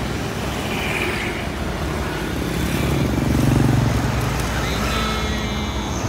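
Road traffic crossing a bridge: motorcycle and car engines and tyre noise running steadily, with one engine swelling louder around the middle as it passes close by.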